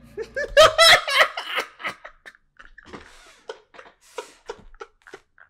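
A man laughing hard: a loud burst of laughter about half a second in, then a string of short, quieter, breathy laughs that trail off.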